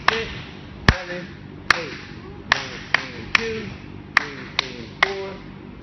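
A cheerleading squad clapping and stomping together in a rhythmic routine, with a sharp strike every half second or so; the strike about a second in is a deep thump. Short group shouts follow many of the strikes.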